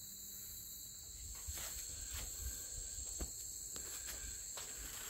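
Steady high-pitched drone of insects, with a few faint clicks scattered through it.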